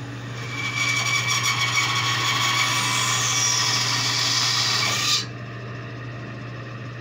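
Bandsaw blade cutting through wood: a loud rasping cut lasting about four and a half seconds that stops suddenly as the piece is drawn back, with a high note in the cut dropping slightly in pitch near its end. A steady low hum runs underneath.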